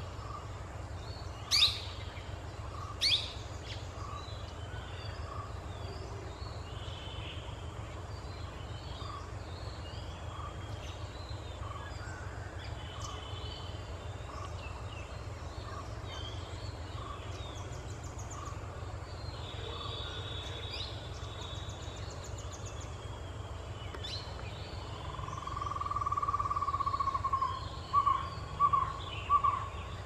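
Birds calling in trees: two sharp, high calls near the start over a light chatter of chirps, and a soft low note repeated steadily. Near the end a longer note of the same pitch breaks into a run of louder repeated notes. A steady low rumble runs underneath.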